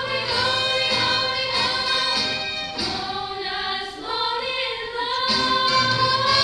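Female voices singing a song on stage, a lead singer at a microphone with a group of voices singing along.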